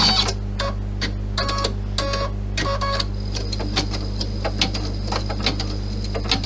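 Computerised embroidery machine stitching a design, running over a steady hum. For the first few seconds its hoop drive gives short pitched whirs about every half second; then a steady high whine sets in with a run of quick needle ticks.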